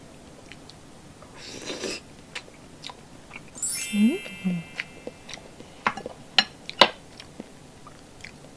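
Close-miked eating of soft, fatty milkfish belly: a slurp about a second and a half in, then wet chewing and sharp lip-smacking clicks through the second half. About four seconds in, a twinkling chime effect rings over two short hummed sounds.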